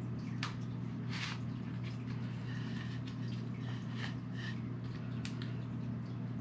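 Steady low hum, with a few faint clicks and light rustling as a metal detector and its coil cable are handled.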